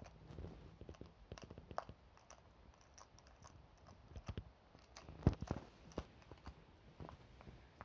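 Small Yorkshire terrier rummaging among pillows and a blanket: irregular soft rustles and clicks of fabric being pushed around, with a sharper knock about five seconds in.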